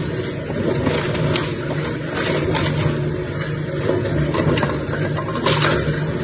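Heavy industrial machine running with a steady low hum, with irregular knocks and rattles over it.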